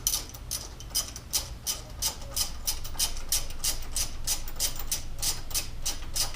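Ratchet wrench clicking steadily, about three clicks a second, as a bolt is turned.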